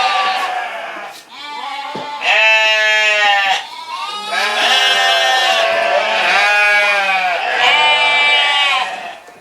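Sheep bleating: several loud, long calls one after another, some overlapping.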